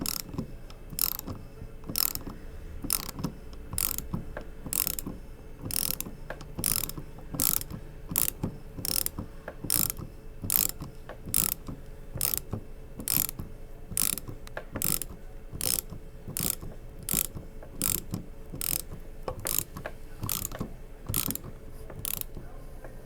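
Ratchet wrench clicking in a steady run, about one to two clicks a second, as the forcing screw of a pulley installer tool is turned to press the pulley onto a power steering pump shaft.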